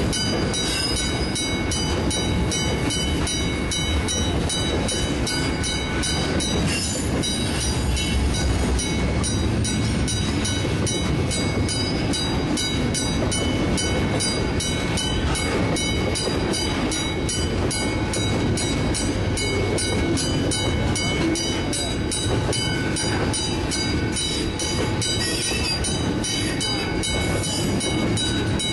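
Freight train rolling steadily through a level crossing, its wagons rumbling and clattering over the track, while the crossing's warning bell rings on in rapid, even strokes.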